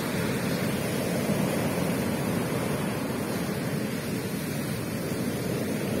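Heavy ocean surf breaking on a beach: a steady rush of waves and washing foam, with no single crash standing out.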